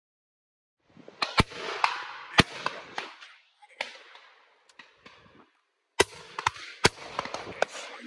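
Shotgun fire from a line of guns: a rapid, irregular string of shots starting about a second in, the four nearest ones loud and the rest fainter from further along the line. Each shot trails off in a rolling echo.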